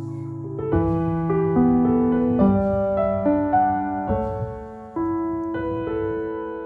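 Background piano music: a slow, gentle melody of held notes over sustained chords.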